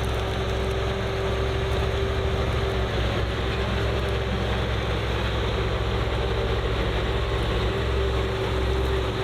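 Heavy machinery running steadily: a deep engine rumble with a constant whine over it.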